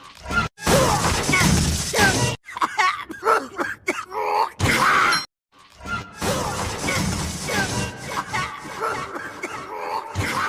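Cartoon audio clips spliced together: music and voices mixed with crashing, shattering noises, broken by several abrupt cuts to silence.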